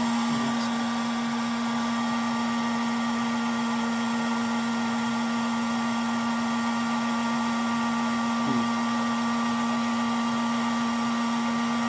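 Kobalt heat gun running steadily at a high heat setting (about 1000 degrees), blowing hot air to melt the ice off a refrigerator's frosted-up evaporator coils: a steady fan hum with a rush of air.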